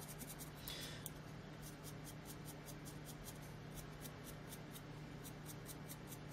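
Faint, quick, even scratching of a stiff, worn-out bristle brush dry brushing paint over the raised edges of a small figure's sculpted brain, with a steady low hum underneath.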